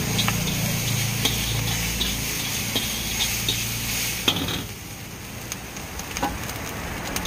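Fried rice being stir-fried in a large wok: a metal spatula scraping and knocking against the pan at irregular intervals over a steady sizzle. A low rumble underneath drops away a little past halfway.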